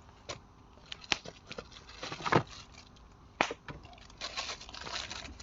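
Wood bonfire crackling and popping: scattered sharp cracks at first, becoming a denser crackle near the end.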